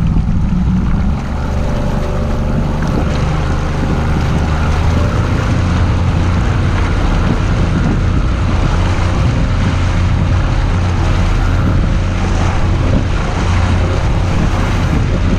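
Boat's outboard motor running steadily at trolling speed, with water rushing along the hull and wind on the microphone.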